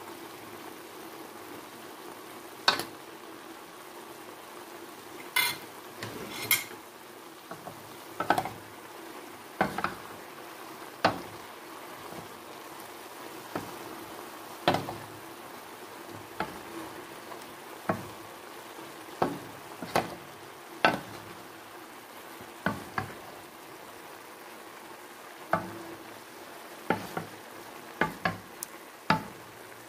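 Chicken livers, gizzards and broccoli sizzling steadily in a wok while being stir-fried, with a wooden spatula knocking and scraping against the pan at irregular intervals; the loudest knock comes about three seconds in.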